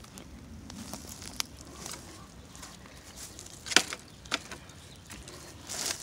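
Footsteps crunching through dry leaf litter and twigs as someone pushes through brush, with a few sharp snaps of twigs. The loudest is a crack a little past the middle, and a branch swishes past near the end.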